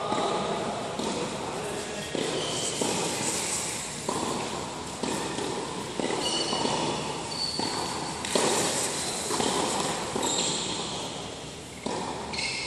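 Indoor tennis rally: sharp racket strikes and ball bounces at irregular intervals, about one a second, echoing in a large hall, with players' footsteps on the hard court.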